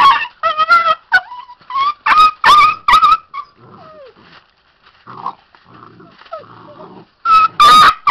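Puppy yelping and squealing in a rapid run of short, high calls while an adult dog wrestles with it, then quieter growling, then another burst of loud yelps near the end.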